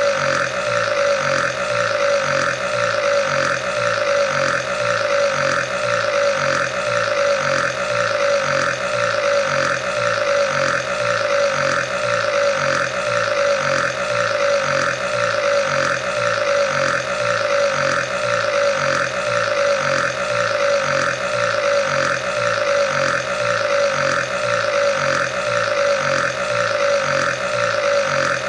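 Burping without a break, one burp running straight into the next in an even, repeating rhythm.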